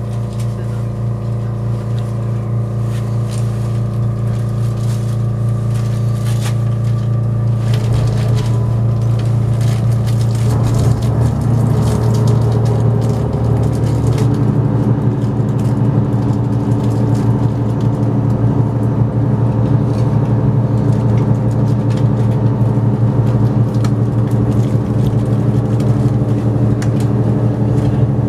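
Inside the cabin of an HB-E300 series hybrid railcar pulling away and gathering speed: the hum of its diesel-electric drive rises in pitch and grows louder, stepping up about ten to fourteen seconds in.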